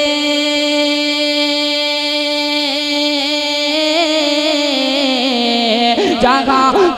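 A man singing a naat unaccompanied, holding one long note for about five seconds, then sliding a little lower and breaking into quick vocal runs near the end.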